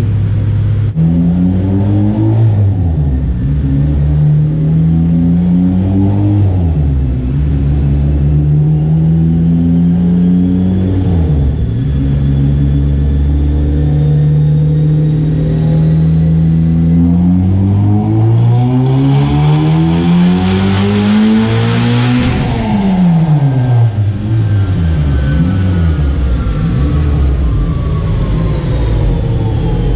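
Turbocharged Honda Civic Si's 2.4-litre four-cylinder running on a chassis dyno, rising and falling in pitch through several gear changes, then a long full-throttle pull that climbs for about five seconds to a loud peak two-thirds of the way through. Then the revs fall sharply as the throttle lifts, and the engine winds down.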